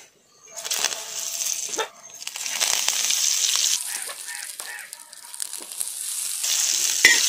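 Hot coconut oil sizzling in a pan, with mustard and fenugreek seeds crackling. The sizzle grows louder about two and a half seconds in as curry leaves drop into the oil.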